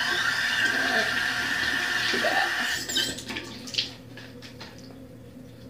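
Tap water running into a sink for about three seconds, then stopping, followed by a short knock.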